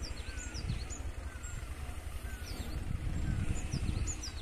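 Small birds calling again and again with quick, high, downward-sweeping notes in little groups, over a low, uneven rumble.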